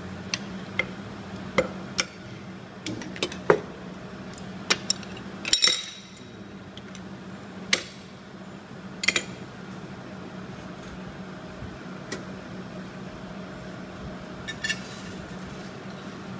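Irregular metal clinks and taps as a metal hand mould for pewter cup handles is opened and the freshly cast pewter pieces are handled on a metal work plate, with a denser rattle of clinks about five seconds in. A steady low hum runs underneath.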